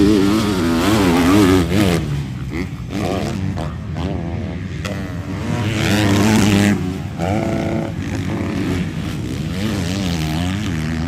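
Motocross bikes running on a dirt track, their engines revving up and down over and over as the riders work the throttle, with more than one bike heard at once. Loudest about six seconds in.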